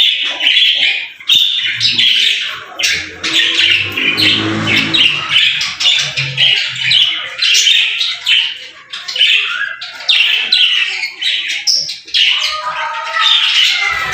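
Budgerigars chattering: a dense, continuous run of short high chirps and squawks from several birds overlapping.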